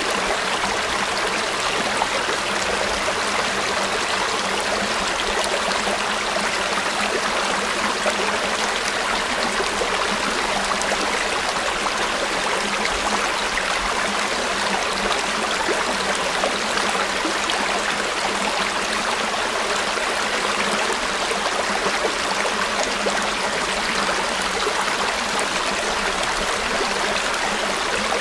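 River water flowing steadily over stones, a constant rushing with fine trickling and splashing detail.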